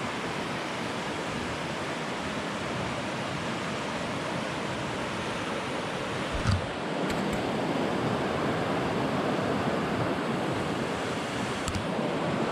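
Steady rush of fast-flowing creek water, with a single thump about halfway through.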